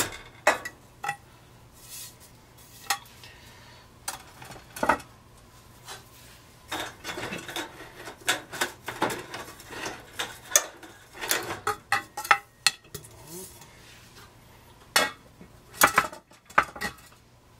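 T12 fluorescent tubes being twisted out of their sockets and handled: scattered clicks, clinks and knocks of glass tube and metal fixture, coming in clusters, thickest in the middle and again near the end.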